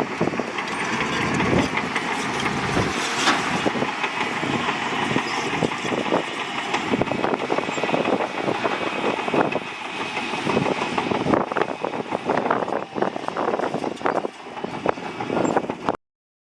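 Crawler bulldozer at work: the diesel engine runs under a dense clatter of many rapid metallic clanks from the steel tracks. The sound cuts off suddenly near the end.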